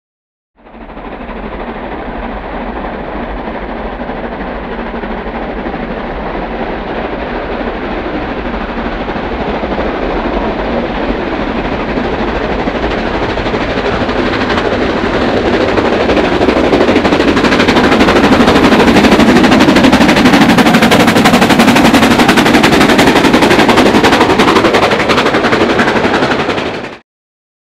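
Steam locomotive working hard with a heavy train, its exhaust beating rapidly, growing steadily louder as it approaches and passes close by; the sound cuts off abruptly near the end.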